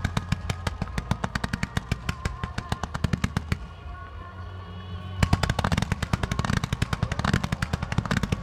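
Fireworks going off in rapid volleys of sharp cracks, about eight a second. The cracks pause briefly around the middle, then a denser, louder volley starts about five seconds in.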